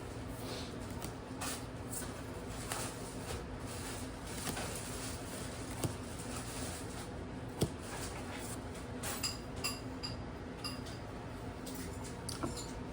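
Trading cards and booster-pack wrappers being handled: faint rustling with scattered soft clicks and ticks over a steady low hum, with a few sharper clicks near the middle and toward the end.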